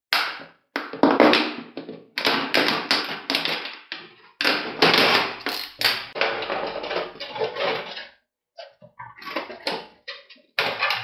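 Scissors cutting through a thin PET water bottle, the plastic crackling and crinkling as the bottle is squeezed and turned. The sound comes in runs of crackling with short pauses between them.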